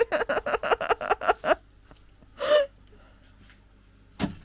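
A person laughing in a rapid run of short bursts for about a second and a half, then a brief voiced exclamation. Near the end comes a single sharp wet smack as a thrown handful of wet clay hits the terrarium's background.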